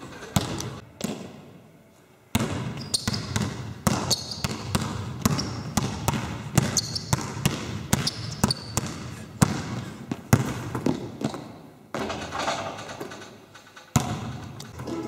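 A basketball dribbled hard and fast on a wooden sports-hall floor. A quick, uneven run of bounces starts about two seconds in, pauses briefly near the end, then resumes. A few short high squeaks come between the bounces.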